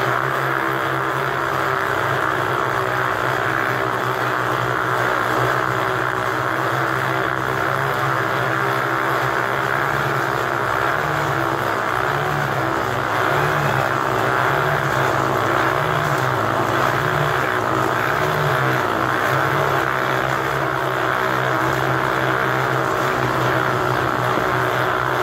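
Motorcycle engines running continuously inside a steel globe of death, the drone rising and falling in a repeating pattern as the bikes circle the sphere.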